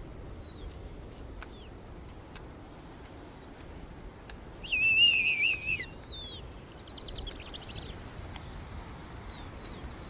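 Bird calls: thin, high whistled notes that slide downward, repeated every second or so. A louder burst of wavering calls comes about halfway through, followed by a short rapid trill, over a faint steady wind.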